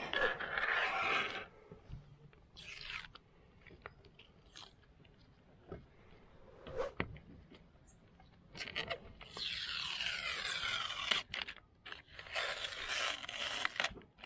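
Protective paper backing being peeled off a perspex (acrylic) sheet, crackling and tearing in several separate pulls. The longest pulls come in the second half, with a few light clicks in between.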